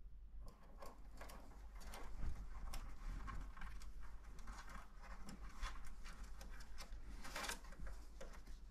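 Quick irregular clicks and scratches of a green-cheeked conure's beak and feet on a wooden dollhouse shelf as it goes at a toy budgie, with one louder scratch near the end.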